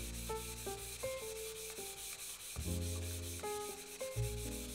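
Sandpaper wrapped around a hand-held sanding block rubbed quickly back and forth along the edge of a small walnut box: a steady scratchy hiss of short, even strokes. Background music plays underneath.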